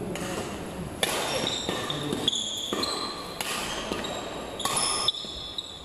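Badminton rally: sharp racket strikes on the shuttlecock a second or so apart, with short high squeaks of court shoes on the hall floor between them, echoing in the hall.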